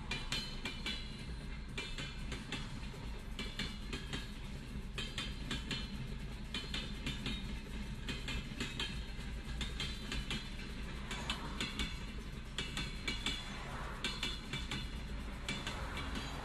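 Freight train rolling past at close range: a steady low rumble with continual rapid clattering and metallic clanks from the wheels running over the rails.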